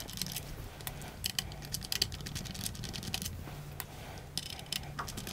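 Small, irregular clicks and taps of a camcorder's plastic and metal body parts being handled and worked on by hand during disassembly, over a faint steady low hum.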